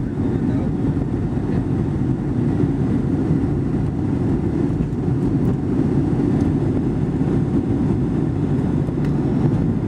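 Steady low rumble of a Boeing 757-200's jet engines and airframe, heard from inside the passenger cabin as the aircraft accelerates for takeoff.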